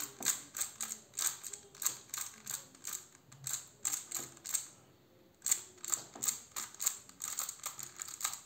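Plastic bandaged 3x3 puzzle cube being scrambled by hand: quick clicking and clacking of its layers turning, several turns a second, with a short pause about five seconds in.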